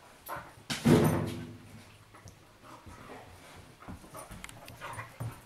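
Dogs playing indoors, with one loud, low bark about a second in, then fainter short scuffling sounds.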